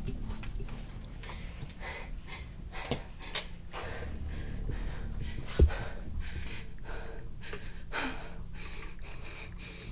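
A woman's heavy, uneven breathing with gasps. A single short low thump about halfway through.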